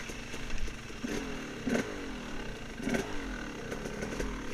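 Off-road dirt bike engine running and revving up twice, about a second in and again about three seconds in, with clattering knocks as the bike goes over rough trail.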